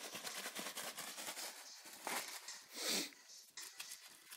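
A small folded paper slip crinkling and rustling as it is unfolded by hand, a fine crackle with two louder swishes about two and three seconds in.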